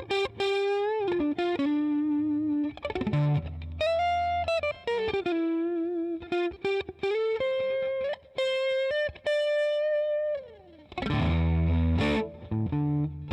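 Electric guitar played through a Digitech RP55 modelling processor on a crunch (light overdrive) patch with spring reverb. It plays single-note lead lines with string bends and vibrato, one long note sliding down about ten seconds in, then fuller chords near the end.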